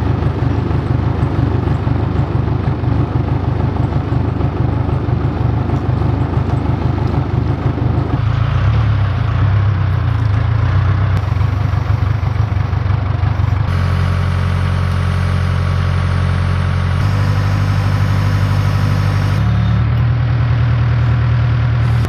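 Backhoe's diesel engine running steadily under hydraulic work while loading a log onto a sawmill, its pitch shifting abruptly several times.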